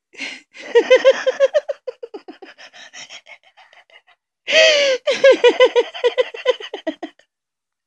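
A person laughing in two bouts of quick, breathy, gasping pulses, about five or six a second, each starting with a sharp intake of breath; the second bout, starting about halfway through, is the louder.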